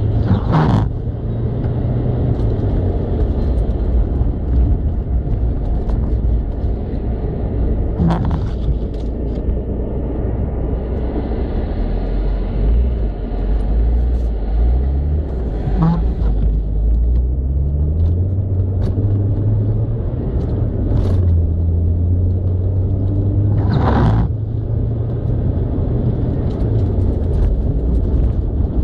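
Volkswagen Golf engine running hard while driving over snow, its pitch rising and falling with the throttle and gear changes, over a steady rumble of tyres on snow. A few sharp knocks stand out, about every eight seconds, heard from inside the car.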